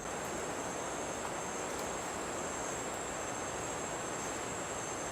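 Insects, cricket-like, keeping up a steady, high continuous drone over an even hiss, unbroken throughout.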